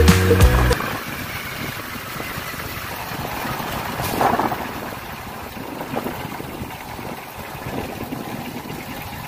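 Music with a heavy bass cuts off suddenly about a second in, leaving the steady sound of an engine running, with a brief louder swell around four seconds in.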